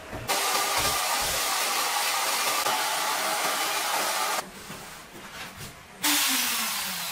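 Shaper Origin handheld CNC router running, its spindle giving a loud, steady, hissing whine that cuts off after about four seconds. After a quieter gap, a second burst starts suddenly near the end and fades as its pitch falls.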